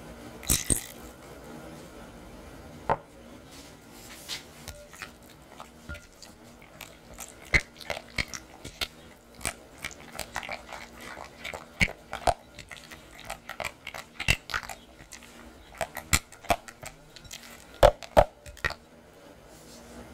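Silicone spatula stirring thick cream cheese batter in a glass bowl: irregular wet squelches and soft clicks of the spatula against the glass, sparse at first and coming thick and fast through the second half.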